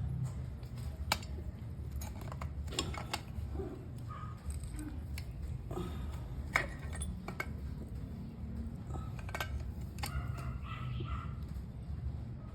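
Scattered light metallic clinks and taps of hand tools working the side adjusters of a differential carrier while the ring-gear backlash is set, over a low steady hum.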